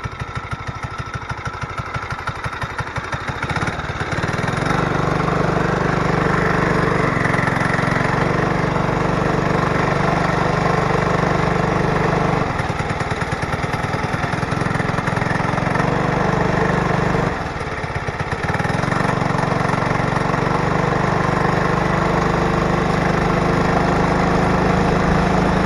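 Small gas engine of a homemade motorized bicycle running, picking up revs about four seconds in, easing off briefly twice and then pulling again.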